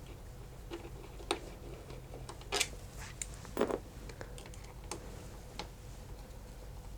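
Irregular light clicks and taps of hand tools and bolts being handled while the clutch cover bolts are taken out, with a few louder knocks near the middle.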